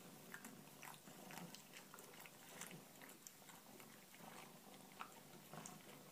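Faint, irregular wet clicks and smacks of a pet chewing.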